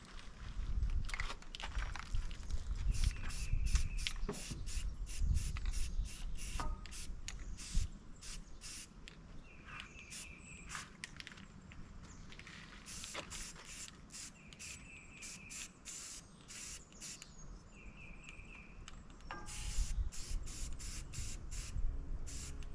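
Aerosol spray-paint can hissing in many short bursts as marks are sprayed onto a block wall.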